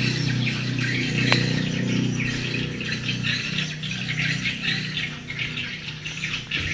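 A flock of small birds chirping in quick, repeated calls, over a steady low hum.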